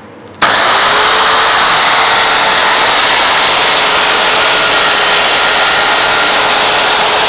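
Handheld circular saw switching on about half a second in and cutting through an MDF board along a guide rail, running loud and steady.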